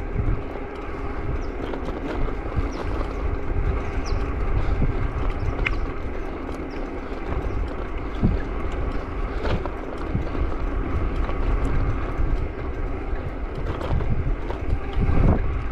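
Steady wind and road noise from riding a bicycle along a busy road, with traffic going by.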